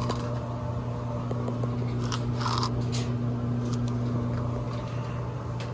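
A screw being tightened into the dryer's sheet-metal panel, giving a few short scraping clicks about two to three seconds in. A steady low hum runs underneath.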